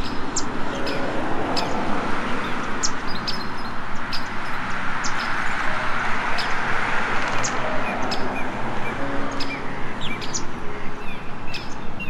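Small birds chirping: many short, high chirps, one or two a second, over a steady rushing background that swells in the middle.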